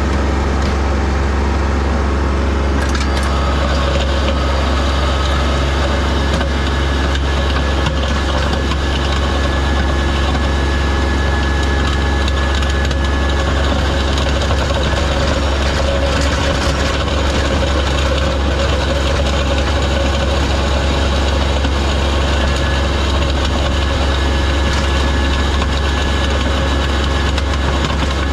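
Kubota L3301 tractor's three-cylinder diesel engine running steadily, with crunching and scraping as the grader blade works over sleet and ice.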